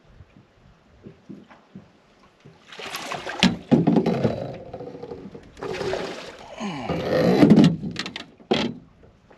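Water splashing in two loud bouts of a few seconds each as a large smallmouth bass thrashes at the surface beside the boat while being netted. A few sharp knocks come with the first bout, and a short splash follows near the end.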